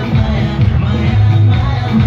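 Loud music played over a stack of PA loudspeakers for stage dancing, with a heavy bass line.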